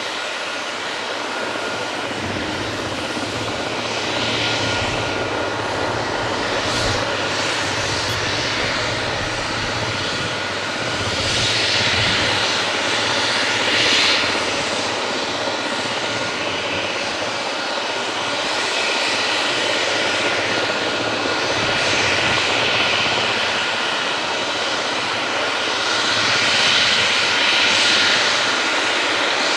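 Leonardo AW139 helicopter's twin Pratt & Whitney Canada PT6C-67C turboshaft engines running on the ground with the rotors turning. A steady high turbine whine sits over a rushing roar that swells and eases every several seconds.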